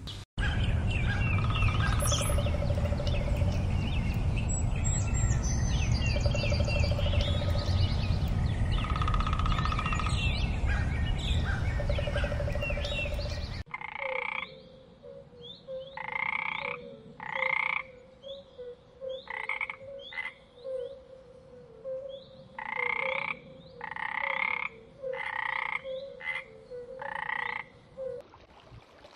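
A loud rushing noise with a low rumble and scattered short chirps, which cuts off suddenly about halfway through. Then a tree frog calling: a dozen or so short croaks, about one a second and sometimes in pairs, over a faint steady tone.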